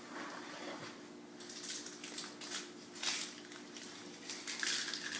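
Irregular bursts of rustling and scuffing as a baby shifts and scoots on a hardwood floor, starting about a second and a half in, over a steady low hum.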